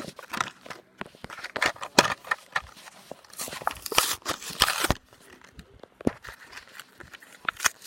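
Plastic and cardboard of a Hot Wheels blister pack crackling and tearing as it is worked open by hand, in irregular clicks and rustles that grow busiest in the middle.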